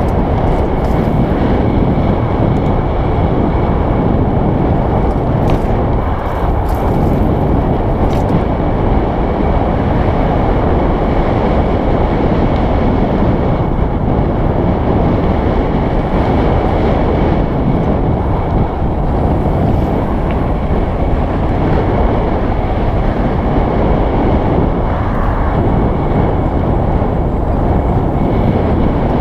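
Steady loud rush of wind over a helmet-mounted camera's microphone, mixed with mountain bike tyres rolling over a dirt trail on a fast ride.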